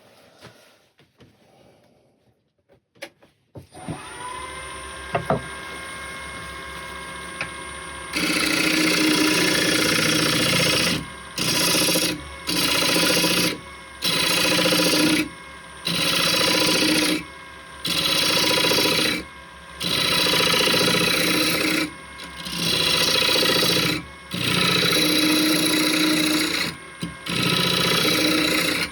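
A wood lathe motor starts up with a steady hum. Then a turning tool cuts the spinning wooden knob blank in repeated passes of a second or two each, a loud rasping with short pauses between passes.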